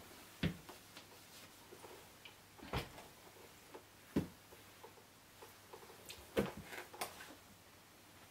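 Clothing and a small handbag being handled: a handful of short, separate soft knocks and rustles, spread through the moment over faint room tone.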